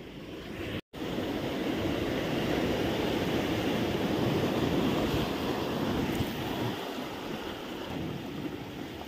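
Sea waves washing with wind on the microphone: a steady rushing noise that swells in the middle and eases toward the end, broken by a brief total dropout about a second in.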